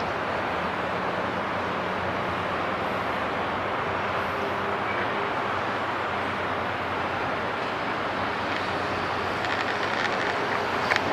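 Steady hum of city traffic, heard from under a road bridge, with a few light clicks near the end.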